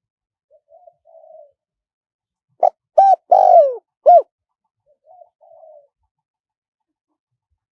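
Spotted dove cooing: a soft low murmur, then about three seconds in one loud phrase of four notes (a short note, a coo, a long falling coo and a short final note), followed by another soft murmur.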